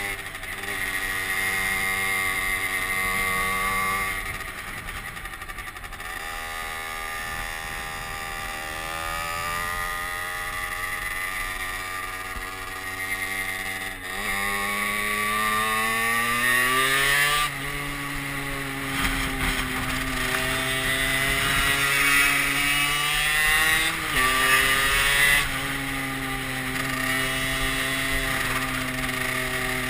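Small moped engine under way, recorded from the rider's seat. Its note climbs as the bike accelerates and drops sharply at gear changes, once about halfway through and again near the end, with wind rushing over the microphone.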